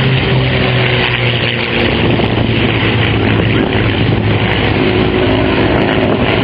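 Piston aircraft engines droning steadily overhead, their pitch drifting slightly lower, under heavy wind noise on the microphone.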